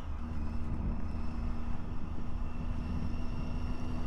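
Triumph Tiger 800's three-cylinder engine running at a steady cruise on the road, holding one even note, with road rumble underneath.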